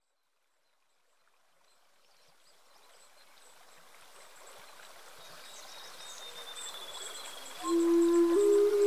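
Running stream water fading in slowly from silence, with a faint high whistle sliding downward. Near the end, sustained musical notes come in and step up once, opening a calm new-age-style music track over the water.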